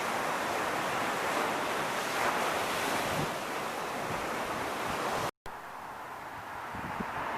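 Ocean surf washing onto the beach, a steady rush of noise with wind on the microphone. About five seconds in the sound cuts out for a split second, then comes back duller and quieter with a few low wind thumps.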